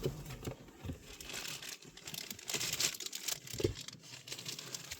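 Plastic wrapping crinkling and rustling as parts are handled, with a few light clicks.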